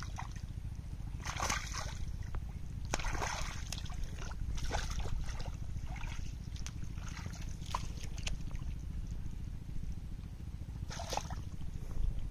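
Hands splashing and sloshing through shallow muddy water while groping for fish. The splashing comes in several short bursts with small drips and clicks between them. A steady low rumble runs underneath.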